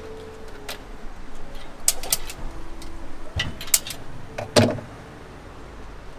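A handful of sharp clicks and knocks from handling things at a wooden food-stall counter and the gas burner in the cabinet beneath it, the loudest a knock with a brief ring about four and a half seconds in.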